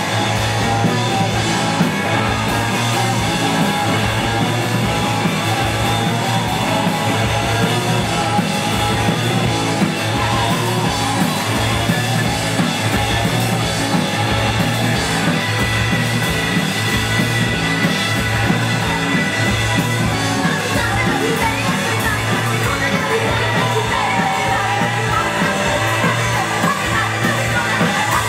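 Live rock band playing loud through a PA: drum kit, electric guitar and a lead singer's vocals.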